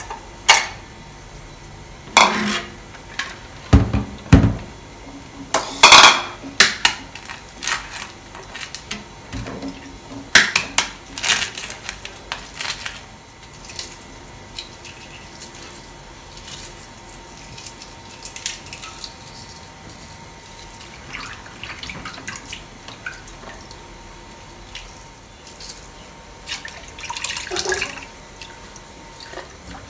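Boiled eggs being cracked and peeled at a stainless steel sink. For the first twelve seconds or so there is a run of sharp knocks and clatter of the pot, bowl and shells against metal. After that comes quieter peeling, with a short splash of water near the end.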